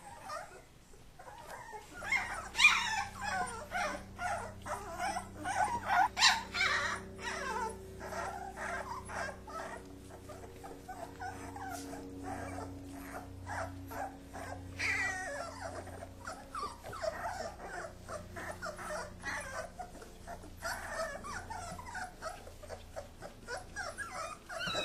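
Kuvasz puppies play-fighting: a busy run of short puppy growls and whines mixed with scuffling clicks, busiest from about two to seven seconds in.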